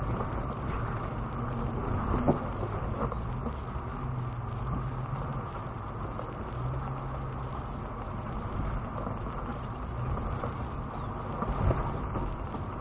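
Lexus GX470's 4.7-litre V8 running at low speed while the truck crawls over rock, heard from inside the cabin, with the rumble of tyres and suspension working over the trail. Two sharp knocks stand out, about two seconds in and near the end.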